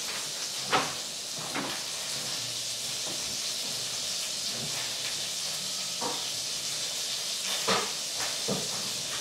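Grilled cheese sandwiches sizzling in a frying pan on the stove, a steady hiss, with a few light knocks and clatters of kitchenware, the loudest just under a second in and near the end.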